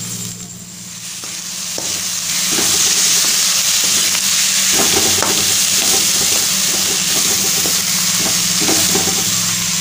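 Washed Gobindobhog rice frying in mustard oil and spice paste in a kadai, with a sizzle that builds over the first couple of seconds and then holds steady. Repeated scraping strokes come from the rice being stirred against the pan.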